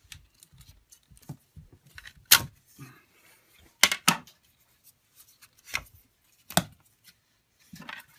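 Hard plastic parts of a BedJet V2 air nozzle and hose fitting clicking and knocking as they are handled and turned over. There are several sharp clicks; the loudest come about two seconds in and twice about four seconds in.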